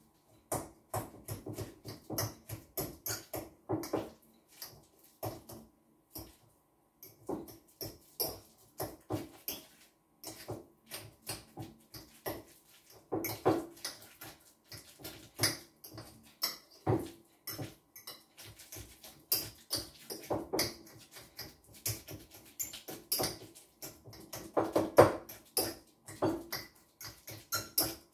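Fork mashing ripe banana in a glass bowl: a quick, uneven run of soft squelches and clicks of the fork against the glass, with a short pause about six seconds in.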